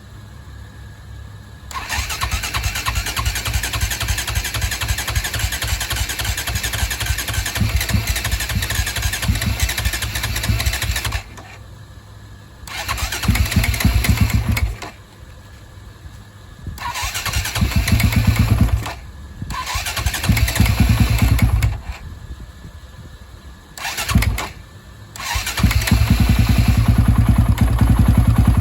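2004 KTM 450 EXC four-stroke single being cranked on its starter with the choke on, a cold start after five years of sitting. There is one long crank of about nine seconds, then several short cranks with pauses, then another steady crank near the end, and the engine does not settle into running.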